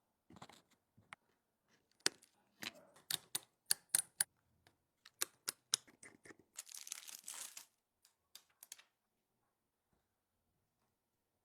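Hands and small tools working on an iPhone during a back glass repair. There is a run of sharp clicks and taps, then about a second of scratchy rustling about seven seconds in, then a few lighter clicks.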